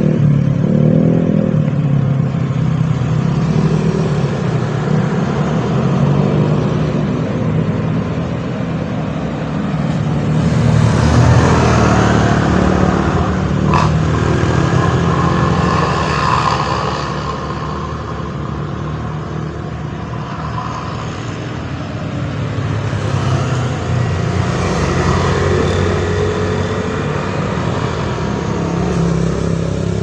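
Road traffic taking a bend: engines of cars, a van and motorcycles rising and fading as each one goes by, with the loudest pass about eleven to seventeen seconds in.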